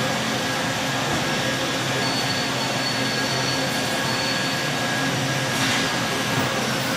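Steady running noise of an automated welding machine on a factory floor, with thin high whines over a constant mechanical din and a short hiss about five and a half seconds in.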